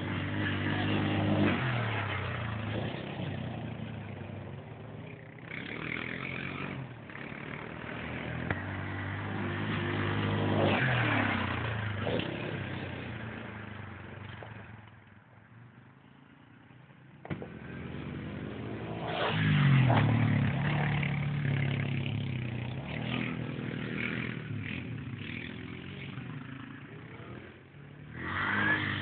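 Yamaha Grizzly 700 ATV's single-cylinder engine revving up and easing off as it rides across a field, its sound fading to faint for a couple of seconds past the middle, then revving hard again.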